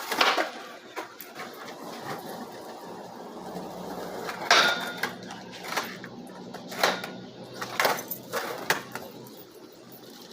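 Skateboard wheels rolling on pavement with a low rumble, broken by about five sharp clacks of the board and trucks hitting the ground during a trick attempt between about four and nine seconds in.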